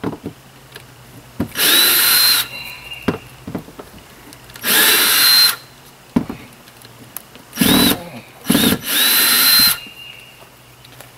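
Ryobi cordless drill backing screws out of a camper's aluminium window frame in four short runs, the motor whine rising quickly to a steady pitch each time, with light clicks and taps between the runs.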